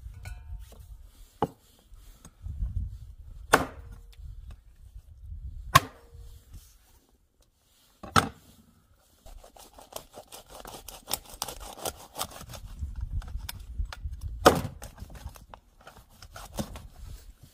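Chopping with a blade: about six sharp chops at uneven intervals a second or more apart, with scraping and rustling handling noise between them.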